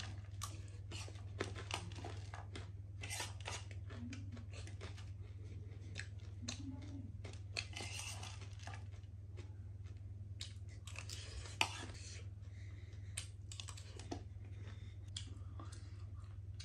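Close-up eating sounds: chewing and wet mouth smacks with scattered short clicks, over a steady low hum.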